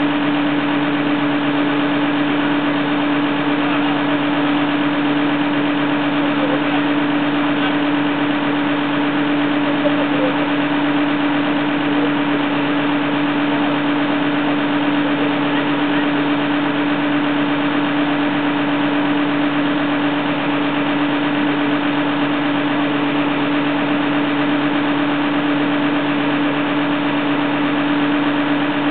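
Fiatagri 160-90 DT tractor's diesel engine idling steadily.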